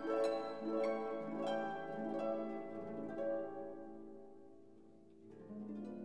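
Instrumental background music of plucked notes that ring and fade. Several notes come in quick succession, then the music slows into a fading chord, and a new chord sounds about five seconds in.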